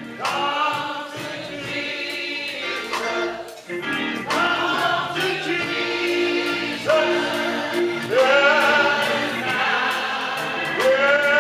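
Church congregation singing a slow hymn of invitation in the old style, with long, drawn-out notes that slide up into pitch and a man's voice leading.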